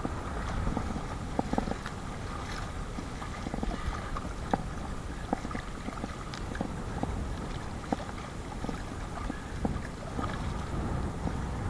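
Choppy water slapping and splashing against the hull of a Perception Sound 10.5 kayak being paddled through whitecaps in strong wind, with many irregular short knocks over a steady rush of wind and water.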